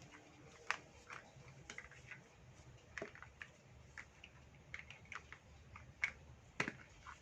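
Small plastic toy pieces clicking and tapping as they are handled and fitted together, in scattered single knocks with the loudest just under a second in, around three seconds in, and twice near the end.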